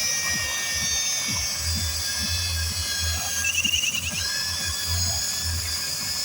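Angle grinder running with a wire cup brush on a threaded extension, a steady high whine over an uneven low rumble, with a short warbling chirp a little after halfway through.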